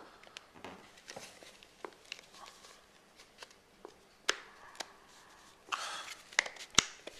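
Plastic parts of a nylon-line trimmer head being twisted together by hand: light scraping and scattered clicks, with the sharpest click near the end as the bottom cap locks into its slots.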